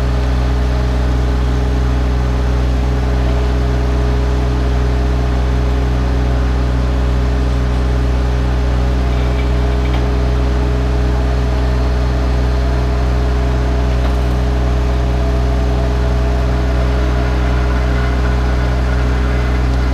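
Mini excavator's diesel engine running at a steady speed, a constant low drone with a steady hum above it.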